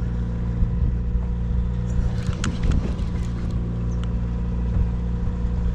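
Sportfishing boat's engine running steadily with a low, even hum, with a few light clicks about two to three seconds in.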